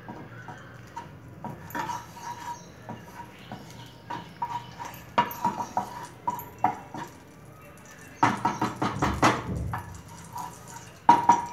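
Wooden spatula scraping and knocking against a nonstick kadhai while stirring melting ghee. There are scattered scrapes, a quick run of rapid scrapes about eight seconds in, and a louder knock near the end.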